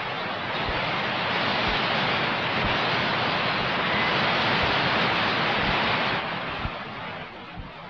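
Waterfall rushing, a steady, full hiss of falling water. It drops away abruptly about six seconds in, leaving a fainter hiss.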